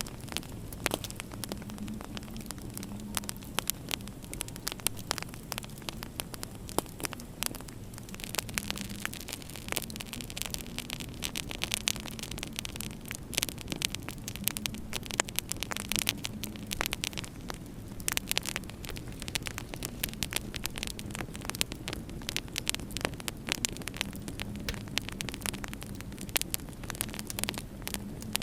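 Wood fire in a fireplace crackling, with frequent irregular sharp pops, over a low, steady hum.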